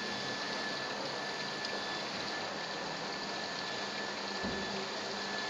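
Dry-cleaning machine running: a steady rushing hiss of solvent moving in the drum, with a thin steady whine over it.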